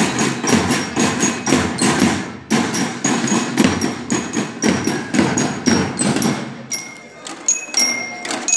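A school banda de guerra's marching drums beaten in a fast, even rhythm, the strokes thinning out and getting quieter from about six seconds in.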